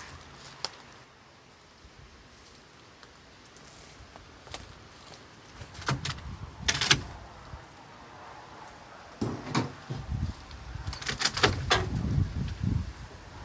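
Scattered knocks and clunks, a few seconds apart at first and bunched together in the last few seconds, over a low rumble.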